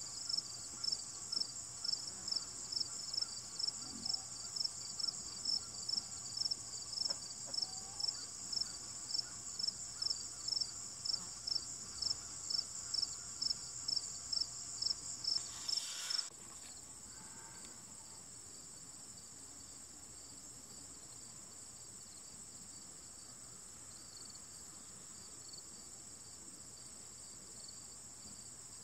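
Insects chirring: a steady high-pitched trill with a louder chirp pulsing about twice a second. The chirping cuts off suddenly about sixteen seconds in, leaving a quieter steady trill.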